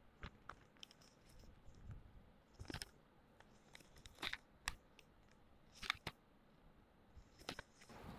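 Faint handling of masking tape on paper: short crackles, taps and rustles as the tape is pulled from the roll, torn off and pressed down, coming irregularly about once a second.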